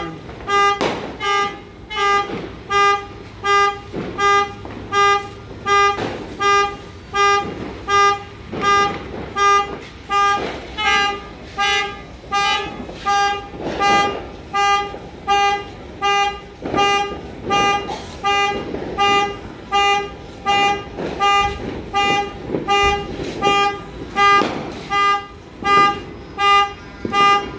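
Car alarm sounding one horn-like tone that beeps about once a second, over and over. Sharp firecracker bangs go off at irregular moments in the background.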